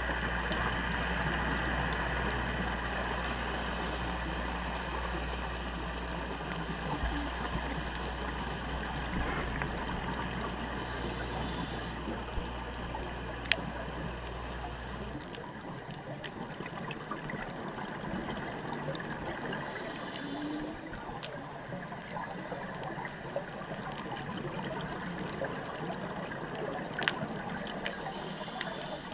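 Underwater sound heard through a diver's camera: a steady hiss with faint crackling, a short rush of regulator exhaust bubbles about every eight seconds, and the low hum of a boat engine that stops about halfway through.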